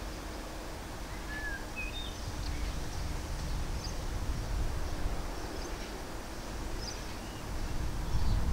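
Class 66 diesel locomotive's two-stroke V12 engine heard at a distance as a low, steady rumble while it approaches, growing louder near the end. A few short bird chirps sound over it about one to two seconds in.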